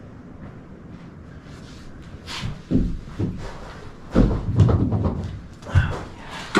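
Irregular thumps and knocks with rustling, starting about two seconds in, like gear being handled and set down.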